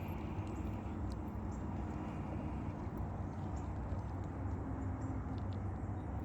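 Steady low outdoor background rumble with a few faint light clicks.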